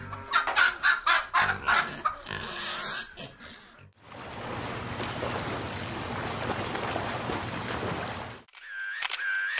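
Several sound effects in a row. First, a run of short pitched calls with clicks lasting about three seconds. Then a steady rushing noise with a low hum, about four seconds long, that cuts off sharply. Then camera shutter clicks in quick succession, starting just before the end.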